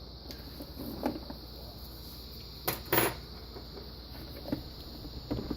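A few scattered clicks and knocks from tools and parts being handled during reassembly, the loudest a double knock about three seconds in.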